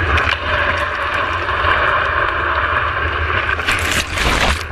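Surf and rushing water heard close on a board-level camera, with wind buffeting the microphone. About three and a half seconds in, a louder, hissing splash lasts about a second as the wave washes over the camera.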